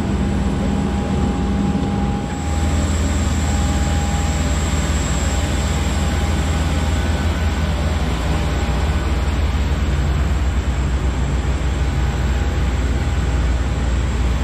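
Steady jet whine and rumble from a parked Malta Air Boeing 737 airliner, with a high whistle and a lower hum over the noise.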